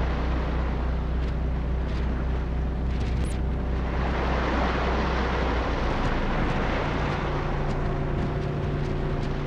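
Rough sea surging and breaking on a rocky shore, the rush swelling about four seconds in, over a steady low hum.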